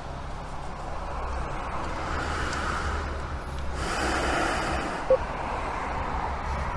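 Low steady rumble with outdoor traffic-like noise that swells twice; about five seconds in, a single short electronic beep from the self-service fuel payment terminal as an option is selected on it.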